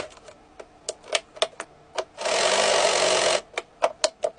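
LEGO Technic parts clicking and snapping together by hand, a dozen or so sharp separate clicks. About two seconds in, a small LEGO electric motor and its gears run steadily for about a second, then stop.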